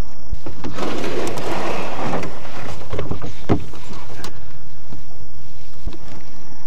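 Plastic pedal boat being boarded: a rustling scrape about a second in, then several knocks and thumps on the hollow plastic hull as a person climbs in and sits down.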